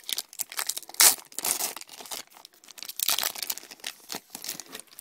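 Foil Pokémon card booster pack wrapper crinkling and tearing as it is worked open by hand, in irregular crackles, the loudest about a second in.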